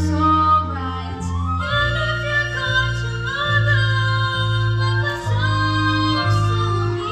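Slow musical-theatre ballad sung live on stage: a voice holds long notes that step in pitch about once a second, over instrumental accompaniment with a steady bass line.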